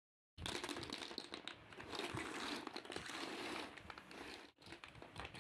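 Chunky plastic toy building blocks clattering in a dense rattle of knocks and clicks as they tumble onto a hard floor and are swept together by hand.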